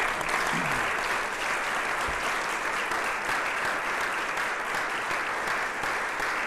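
Audience applauding, a steady round of many hands clapping that starts abruptly.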